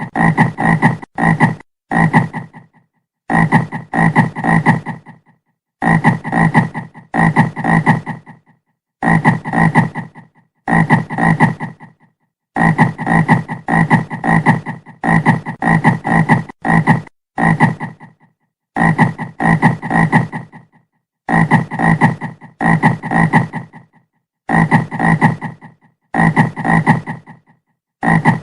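Frog croaking over and over, each croak a quick run of rattling pulses lasting about a second, with short silent gaps between croaks.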